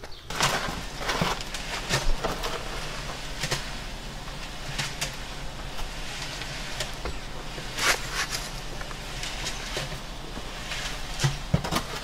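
Scrapes and knocks of hand work in wet concrete and stone: a trowel working mortar and stone edging flags being bedded, in irregular bursts throughout.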